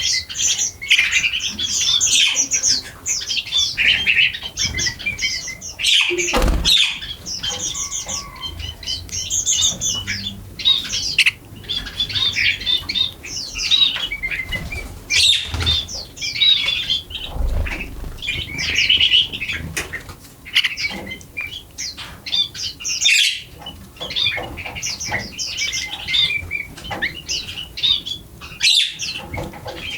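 A flock of birds chirping without pause, many quick high chirps overlapping, with a few short sudden rustles or flutters among them, such as wingbeats.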